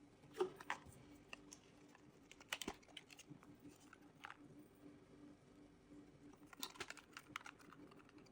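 Quiet, scattered clicks and taps of cardboard and plastic packaging being handled, in small clusters, over a faint steady hum.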